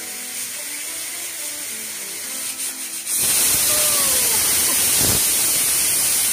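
Stovetop pressure cooker whistling: about three seconds in, the weight lifts and steam jets out with a sudden loud, steady hiss. This is the cooker reaching full pressure and giving its whistle, here one whistle to cook moong dal.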